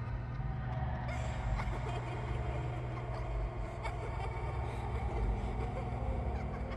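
A steady low rumbling drone, with a few faint clicks over it.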